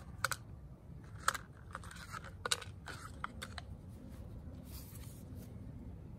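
A tarot deck and its packaging being handled: a few sharp clicks and crinkles in the first three and a half seconds, then a brief soft rustle.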